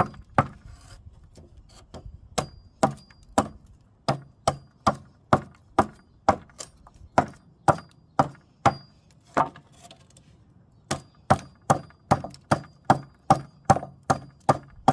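Vintage hand bowl adze chopping into wood in a steady run of sharp strokes, about two to three a second, scooping out a curved hollow. The strokes stop briefly about ten seconds in, then resume a little faster.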